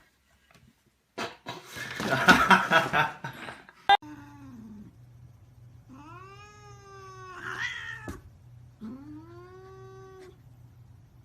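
A cat caterwauling: a loud, harsh yowl lasting about two and a half seconds, then a short falling meow and two long drawn-out meows.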